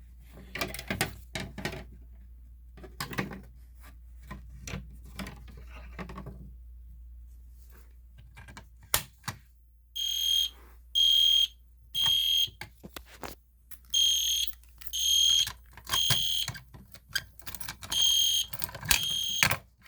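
Scattered clicks and handling noise, then about ten seconds in an EST Genesis fire alarm horn begins sounding in the temporal-3 evacuation pattern: three short high-pitched beeps, a pause, and the three beeps again, repeated about three times.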